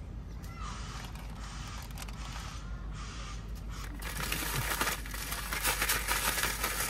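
Plastic zip-lock bag rustling and crackling as pieces of fish are shaken around in crumb coating, soft at first and much louder from about four seconds in when the bag is shaken hard.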